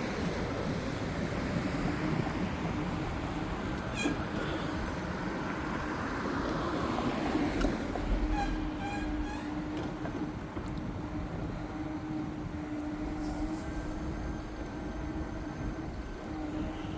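Road noise inside a moving car: a steady drone of tyres and engine, with a steady hum that comes in about eight seconds in and a few faint brief squeaks.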